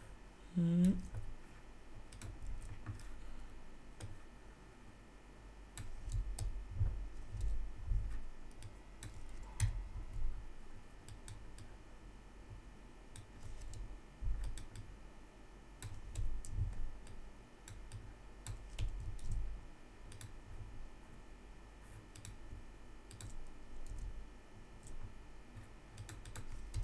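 Computer keyboard typing and mouse clicks in irregular bursts while code is edited. A short wordless vocal sound, like a 'hm', comes just under a second in.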